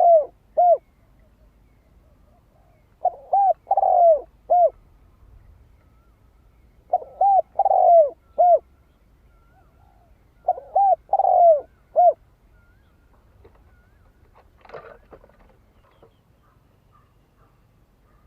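Spotted dove cooing: phrases of four or five rising-and-falling coos, a new phrase about every four seconds, three times over. A pause of several seconds follows with only a faint brief rustle.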